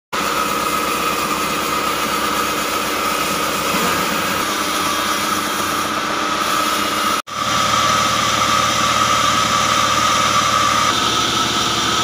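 Sawmill machinery running steadily: the band saw mill's drive engine, with a steady high whine over it. The sound breaks off for an instant just after seven seconds, then carries on unchanged.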